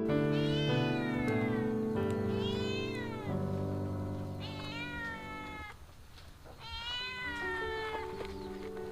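A cat meowing four times, each call about a second long, rising then falling in pitch, over background music with sustained chords.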